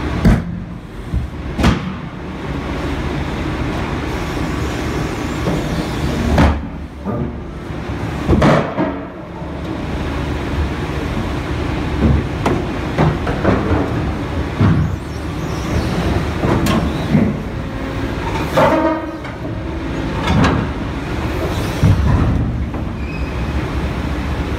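Excavator-mounted VTN hydraulic scrap shear crushing and cutting a large steel pipe: a steady machine drone with sharp metallic cracks and bangs every couple of seconds as the jaws bite into the steel, and a brief screech of metal on metal a few seconds before the end.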